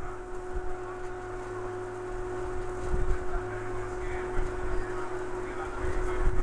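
Staten Island Ferry running while docking: a steady drone with a low rumble, and a few dull low thumps about halfway through and near the end.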